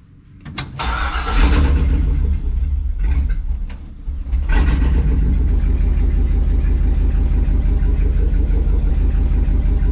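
LS V8 engine in a 1954 Chevy starting about a second in and running rough, with the plug wires pulled off cylinders 7 and 8, which are misfiring. Its sound dips for about a second around the middle, then runs steadily again.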